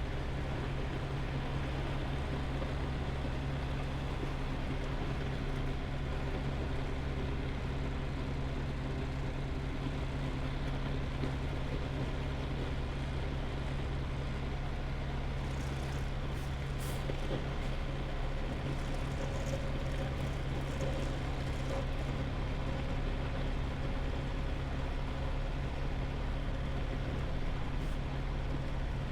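Semi-truck diesel engine running steadily as a low, even drone heard from the cab, with a few faint ticks about halfway through.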